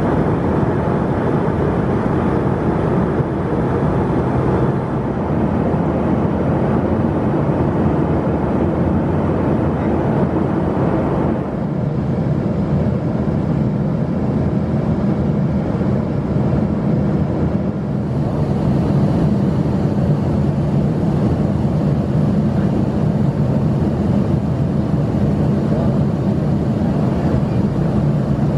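Steady cabin noise of an Embraer ERJ 135 regional jet in flight: the drone of its twin rear-mounted turbofans under the rush of air along the fuselage. The hiss drops a little about eleven seconds in and rises again about eighteen seconds in.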